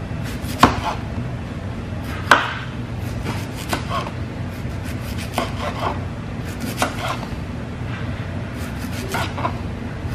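Kitchen knife slicing a cucumber into rounds on a plastic cutting board: sharp knocks of the blade hitting the board at uneven intervals, two louder ones about half a second and two seconds in, over a steady low hum.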